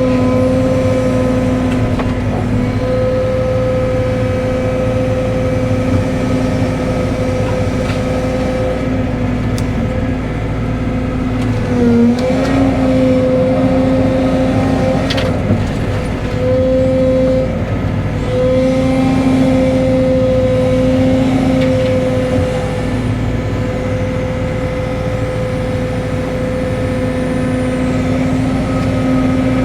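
Cat 313 excavator's diesel engine running with a steady pitched drone, which dips briefly under load about twelve seconds in, with a few short knocks.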